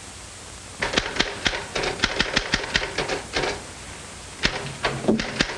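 Manual typewriter being typed on: a quick run of key strikes starting about a second in, a pause of about a second, then typing again near the end, over a faint steady hiss.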